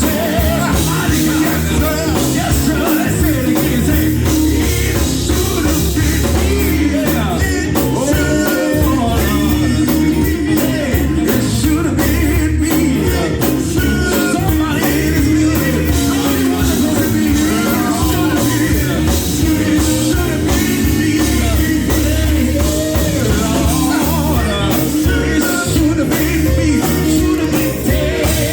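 Live gospel band playing loudly and steadily, with a heavy bass, drums and a sustained organ-like tone under voices singing.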